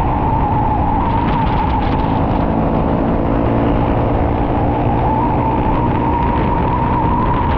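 Single-cylinder four-stroke dirt-bike engine running at a steady throttle while riding, with no sharp revs or sudden changes.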